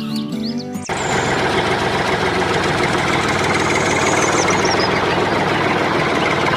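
A small motor running steadily, starting abruptly about a second in as music with bird chirps cuts off.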